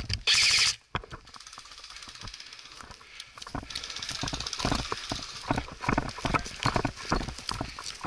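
Footsteps of a person running over mossy forest ground, the thuds getting louder and more frequent from about four seconds in. A short loud burst of noise comes right at the start.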